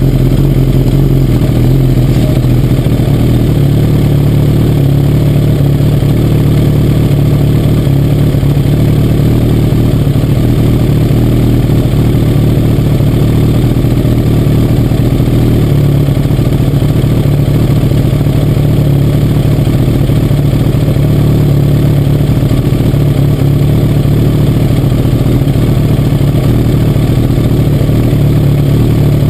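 Kawasaki ZX-10's inline-four engine idling steadily, heard loud and close from a camera mounted on the bike's tail.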